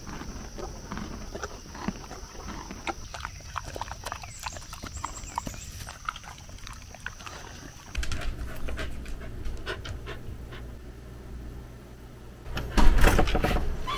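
Dog panting, with short clicks and rustles, and a louder burst of noise near the end.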